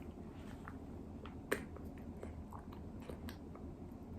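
Faint, wet mouth smacks and small clicks of a baby eating rice porridge off a spoon, with one sharper click about a second and a half in.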